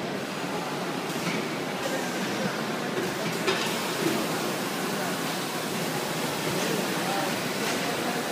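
Steady hissing machine noise of a carton palletizer running, with a few light knocks in the first few seconds as its vacuum-cup gantry picks up cartons.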